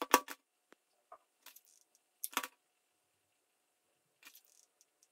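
Short, sharp clicks and taps in a few small clusters, the loudest right at the start: small wooden barbecue-stick pieces and a hot glue gun being handled, picked up and set down on a cutting mat.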